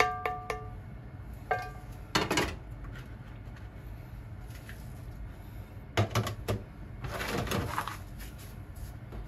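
Kitchen handling sounds: a short clatter of the frying pan and wooden spatula about two seconds in, then a small ceramic dish set down on a stainless steel tray with a few sharp clicks around six seconds, followed by a brief scrape. A few plucked notes of light background music sound at the start.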